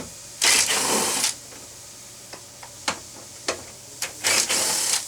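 Small handheld power driver running twice in short bursts, backing out two small 7 mm bolts that hold the truck's rear door panel, with a few sharp clicks of the tool and bolts in between.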